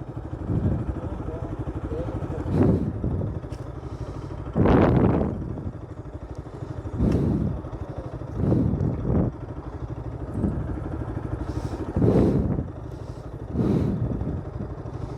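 Motorcycle engine idling, with brief louder swells every second or two.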